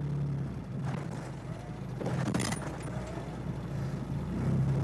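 UAZ off-roader's engine running at low revs under load while the vehicle is stuck in deep snow, its wheels fitted with wooden planks; the engine note swells a little about two seconds in and again near the end.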